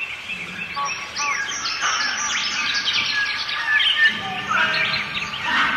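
Birds chirping and singing: a dense run of quick rising and falling calls, busiest from about a second in until near the end.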